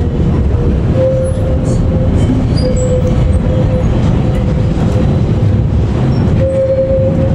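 Vintage train rolling slowly, heard from an open-sided carriage: a steady low rumble of wheels and running gear. A held mid-pitched tone comes and goes three times, about a second in, around three seconds in, and near the end.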